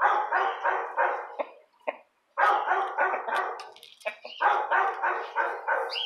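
A dog barking in quick runs of about four barks a second, three runs with short pauses between them.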